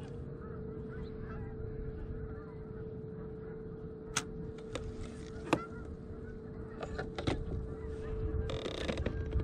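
Motorized kayak's electric drive motor running with a steady whine while under way. A few sharp knocks come around the middle, and a brief rustle near the end.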